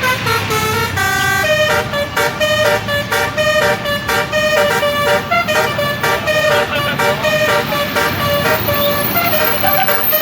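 Bus telolet horn (a Basuri multi-tone air horn) playing a quick melody, its notes stepping up and down several times a second, over a low rumble.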